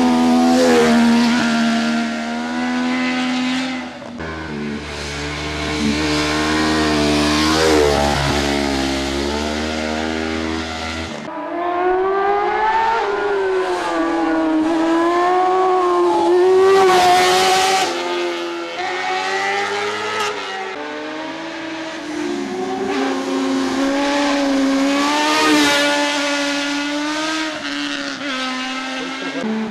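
600 cc racing sport motorcycles taking bends at speed one after another. Their engines rev hard and fall back, the pitch rising and dropping as they brake for the corners and accelerate out. The sound changes abruptly a few times, about 4 and 11 seconds in, where separate passes are joined.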